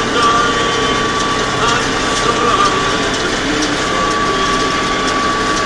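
Massey Ferguson 399 tractor running a Claas 255 round baler while baling silage: steady engine with the baler's mechanical clatter and a continuous whine.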